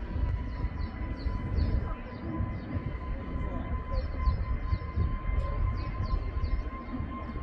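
Airbus A321neo jet engines heard from afar during the takeoff roll: a low, uneven rumbling roar with a thin steady whine that creeps slightly up in pitch. Faint high chirps repeat over it.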